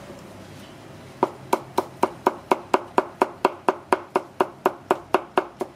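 Chef's knife chopping carrot into fine julienne strips on a plastic cutting board: an even run of sharp knife taps against the board, about four a second, starting about a second in.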